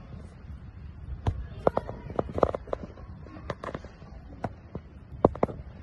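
A small parrot's beak tapping and nibbling on the phone filming it: a string of sharp, irregular clicks right at the microphone, bunched together in the middle and again near the end.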